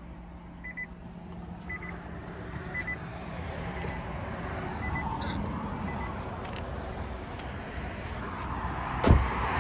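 Short electronic warning beep in a Nissan Leaf ZE0, repeating about once a second and fading out after about six seconds, as a hiss of background noise grows louder. A single thump near the end.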